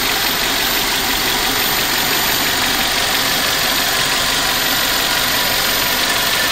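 1997 Toyota Corolla's 7A-FE 1.8-litre four-cylinder engine idling steadily when warm, heard from above the open engine bay: smooth and quiet, it "purrs like a kitten", with a light clicking of the fuel injectors over the top.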